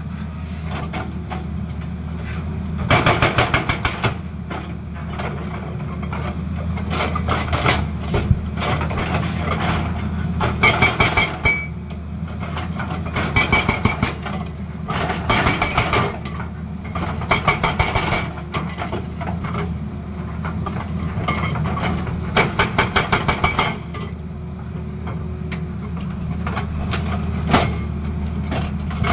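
Hydraulic rock breaker on a Tata Hitachi excavator hammering rock in a series of short bursts of rapid blows, over the steady drone of the excavator's diesel engine.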